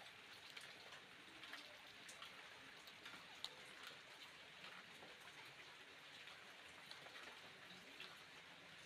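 Faint crisp rustling and crackling of shredded cabbage being squeezed and mixed by hand in a stainless steel bowl, with scattered small ticks.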